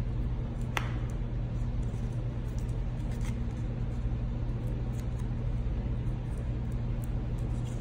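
Light handling sounds of foam adhesive squares being peeled off and pressed onto cardstock, with a sharp click about a second in and a few faint ticks, over a steady low hum.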